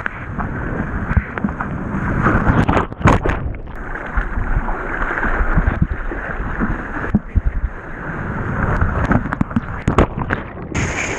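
Sea water splashing and sloshing right at the microphone as a surfer paddles a surfboard through small chop, with irregular sharp splashes over a constant churning wash. Near the end the sound goes dull briefly as the camera dips under the water.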